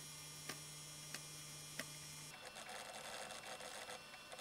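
JVC GR-D725 MiniDV camcorder's tape mechanism running with a steady hum, broken by three sharp ticks about two-thirds of a second apart: the rhythmic tick of a cracked gear wheel, a fault that also causes tape drop-outs and lost audio. About halfway the hum cuts out and a rougher mechanical noise carries on.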